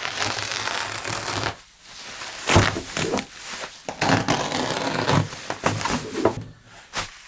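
Handling noise: rustling and scraping with a few short knocks as a heavy piece of electronic equipment is moved about.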